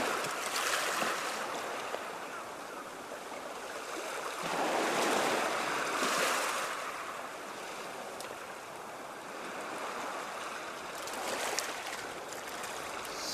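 Sea surf washing on a shore, a steady rush of water that swells and ebbs, with a stronger surge about five seconds in and another near the end.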